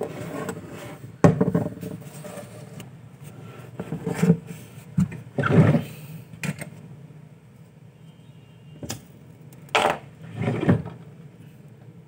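Irregular knocks, clicks and short scrapes of things being handled and set down on a workbench, including a glass jar alcohol lamp, over a steady low hum.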